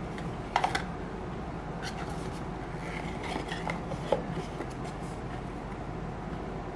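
Cardboard blind box and a picture card handled by hand: light rustling and a few sharp taps and clicks, a cluster just over half a second in and one about four seconds in, over a steady low hum.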